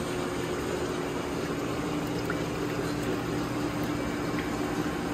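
Steady mechanical hum of running shop machinery: a constant low drone with an even whirring noise over it, unchanging throughout.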